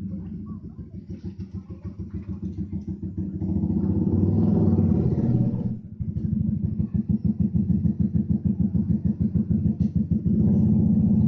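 A small engine running with a fast, even pulse. It gets louder about three and a half seconds in, drops off sharply near six seconds, then picks up and swells again near the end.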